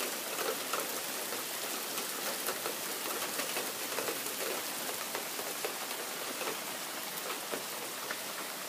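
Steady heavy rain falling, with the many small clicks of individual drops striking nearby surfaces.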